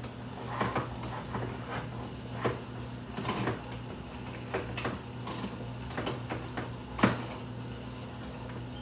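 Handheld manual can opener cutting open a steel soup can: scattered clicks and scrapes as the crank is turned, with a sharper knock about seven seconds in.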